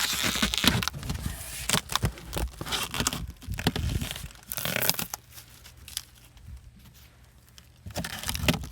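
Packaging being torn and crumpled off a new wheel and tire, in dense bursts of rustling and tearing that stop about five seconds in, leaving a quiet stretch before the handling starts again near the end.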